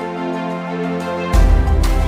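Background music with held chords; a deep bass hit comes in about a second and a half in and the music gets louder.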